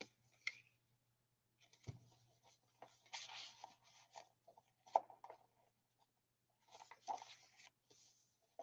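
Faint rustling and sliding of paper as a tag is pushed into a pocket and the pages of a handmade paper journal are turned and smoothed flat, with a few soft taps and knocks.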